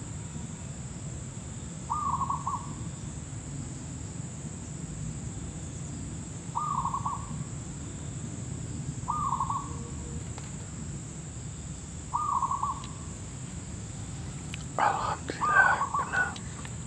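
Zebra dove calling: four short, rapidly stuttering coos, a few seconds apart. A louder, rougher burst of sound follows near the end.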